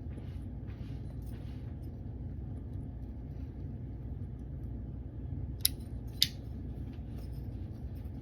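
Comoy of London pipe lighter clicked twice, two sharp clicks about half a second apart, lighting the pipe for its charring light, over a steady low hum.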